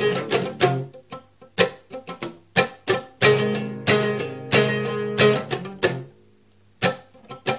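Oud played solo: a melody of sharply plucked single notes and quick runs, with low notes left ringing under it at times. The playing stops for under a second about six seconds in, then picks up again with a fast flurry of notes.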